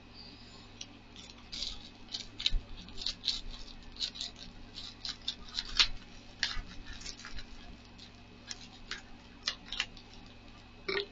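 Scissors snipping open a plastic bubble mailer: a run of short, irregular snips with crinkling of the plastic.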